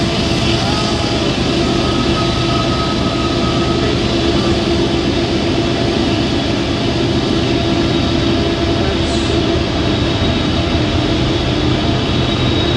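Very long freight train running steadily: a continuous rumble with a constant droning hum on top.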